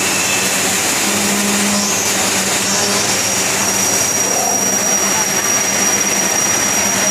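KT 630R 3-axis CNC profile machining center running, a loud, steady mechanical noise. A thin, steady high whine comes in about halfway through and holds.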